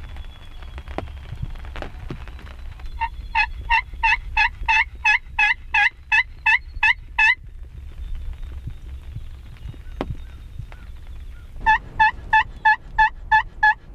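Turkey yelping in two evenly spaced series at about three notes a second: a run of about thirteen yelps, a pause, then about eight more near the end.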